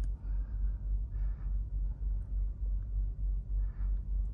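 Low steady rumble with a couple of faint soft rustles, about a second in and again near the end.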